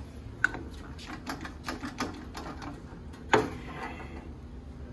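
Irregular mechanical clicks and taps from a JUKI LG-158 double-needle walking-foot sewing machine being turned over slowly by hand at its handwheel, with one louder knock about three and a half seconds in.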